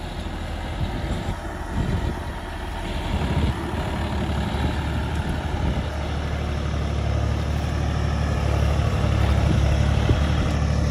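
John Deere diesel tractor engine running under load as it drags a tine cultivator through wet mud, a steady low hum that grows louder toward the end.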